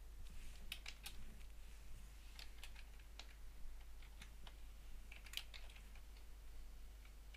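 Faint computer keyboard typing: short scattered clusters of keystrokes with pauses between, over a low steady hum.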